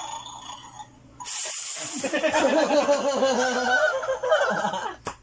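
A short hissing burst about a second in, then a young man laughing hard in a run of pulsing ha-ha sounds for about three seconds.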